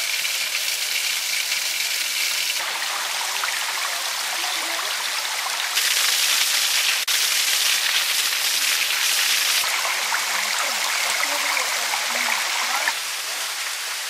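Water of a small waterfall pouring and splashing onto rocks close by, a steady dense hiss. Its loudness and brightness jump abruptly several times, louder from about six seconds in and softer near the end.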